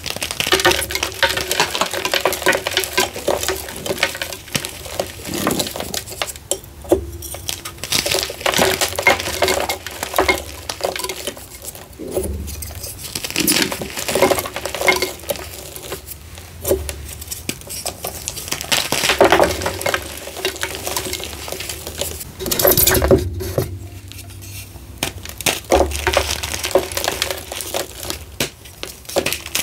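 Hands squeezing and crushing chunks of a dried, reformed gym chalk slab: a continuous run of crunchy crackling and crumbling grit, with a few short pauses between handfuls.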